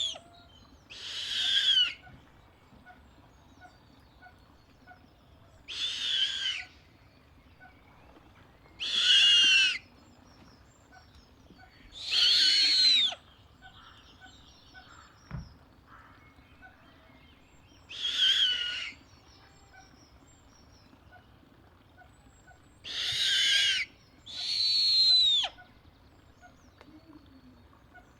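Snowy owl giving seven harsh, high screeching calls, each under a second long and falling slightly in pitch, spaced irregularly one to six seconds apart.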